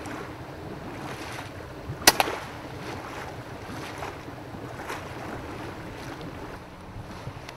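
Daystate Huntsman pre-charged air rifle firing once about two seconds in, a sharp crack with a second, quieter knock a split second after. Under it is a steady rushing noise from the fishery's water pumps.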